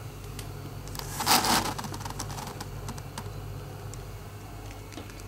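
A short scraping rustle of a cardboard box about a second in, followed by scattered light ticks and taps, over a steady low hum.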